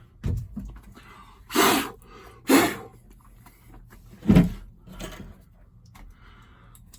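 Several short knocks and scrapes of hand-tool work on a car's floor pan, about five of them spread a second or so apart.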